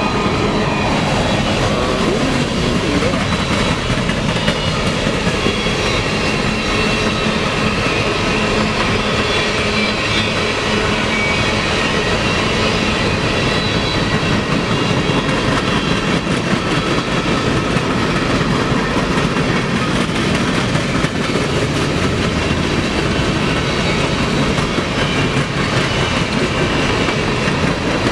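Long string of empty coal cars on a freight train rolling past at speed: a loud, steady rumble of steel wheels on the rails.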